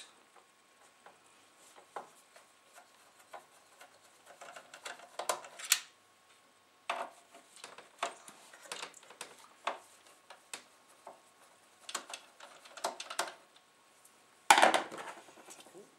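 Screwdriver turning out the screws that hold the CD mechanism in a Denon DN-D4000's metal chassis: scattered light clicks, taps and metal scrapes, with a louder knock near the end.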